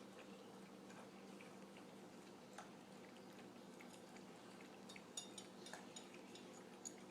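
Faint wet clicks of a Pomeranian lapping milk from a dish, with a few sharper clicks near the end, over a low steady hum.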